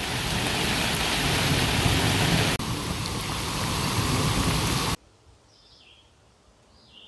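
Heavy rain pouring onto a Coleman Sundome dome tent and the surrounding grass, a steady loud hiss. It cuts off abruptly about five seconds in, leaving quiet with a few faint high bird chirps.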